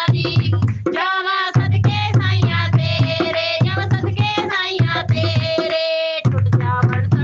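Punjabi devotional shabad: a singing voice with steady percussion accompaniment, sung continuously.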